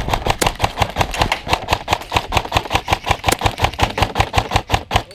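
Airsoft rifle firing a long, fast string of shots, about seven a second, that stops near the end.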